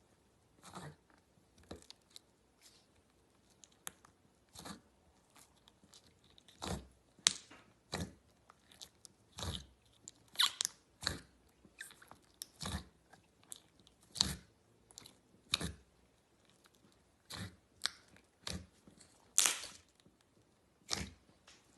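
Slime being squeezed and pressed by hand, giving irregular short crackling pops and squishes, roughly one or two a second.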